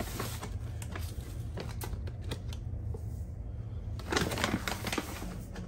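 A plastic scoop rustles in a foil pouch of cream of rice powder as it scoops out the cereal, with the bag crinkling in short bursts; a denser bout of rustling comes about four seconds in. A low steady hum runs underneath.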